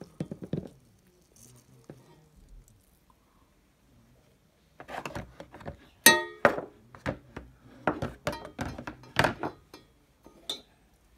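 Clinks and knocks of coffee-brewing gear being handled and set down: an AeroPress lifted off a stainless steel pitcher and its parts and mugs put into a plastic tray. A few light knocks at first, a short lull, then a busy run of clatter from about five seconds in, the loudest a ringing clink about six seconds in.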